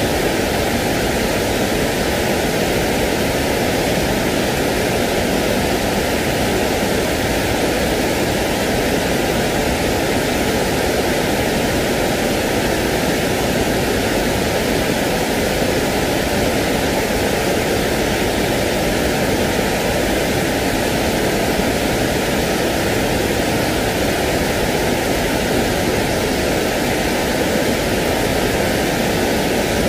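Steady sleep noise: an even, unchanging hiss that never varies in level and has no droplets, clicks or rhythm in it.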